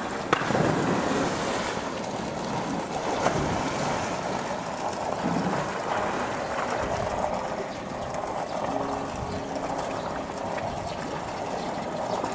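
Water splashing and churning as a polar bear lunges up at a toy and plunges back into a pool, loudest in the first couple of seconds, then a steady wash of water as it swims.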